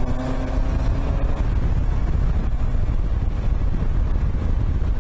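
Yamaha XJ900S Diversion's inline-four engine running steadily while riding on the road, under heavy wind rush on the microphone. A steady engine tone is clearest in about the first second, then the wind noise dominates.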